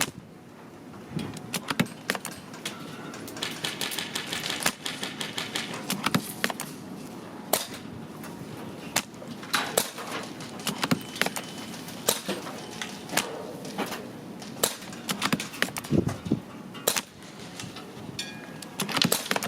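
Irregular sharp clicks and snaps of airsoft guns firing and BBs striking targets, sometimes several in a second, over steady outdoor background noise.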